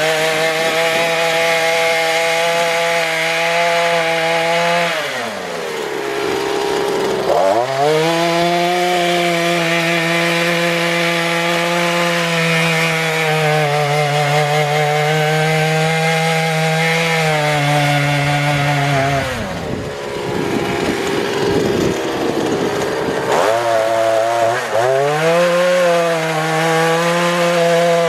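Petrol brush cutter engine running at high revs while driving a tiller attachment through soil. Twice, the engine speed drops off sharply and then climbs back up.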